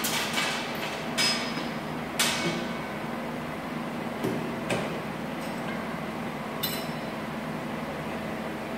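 Steel weight stack of a cable machine clanking as it is set down, then metal clinks of the selector pin being pulled and reinserted to drop to a lighter weight for a drop set. About five sharp metallic knocks, the loudest about two seconds in, some ringing briefly.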